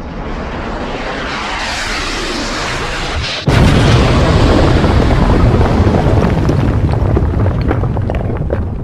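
Explosion sound effect: a rushing noise swells for about three seconds, then a sudden loud blast hits and gives way to a long, deep rumble with crackling that fades near the end.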